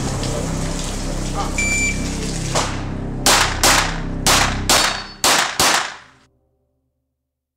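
About seven pistol shots in quick succession, roughly two a second, from a semi-automatic handgun, over background music that fades out.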